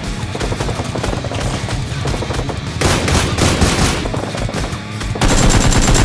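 Rapid automatic gunfire sound effects, dense strings of shots, with louder bursts about three seconds in and again near the end.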